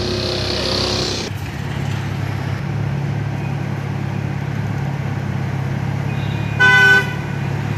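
A car engine idles with a steady low rumble. A single short car-horn blast near the end is the loudest sound.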